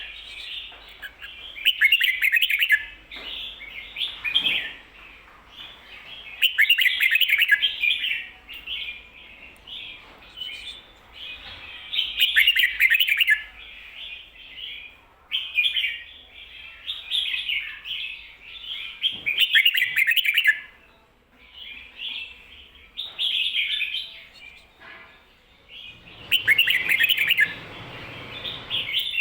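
Red-whiskered bulbul singing: about ten short, high warbling phrases, one after another with brief pauses, in the doubled 'ko-ta-ra' pattern that Thai bulbul keepers value.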